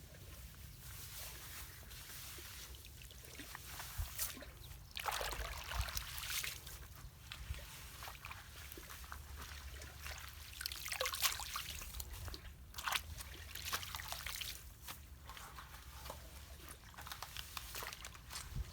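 Water sloshing and splashing in irregular surges over a trickle, as debris is worked loose in a flooded culvert's water. A steady low rumble runs underneath.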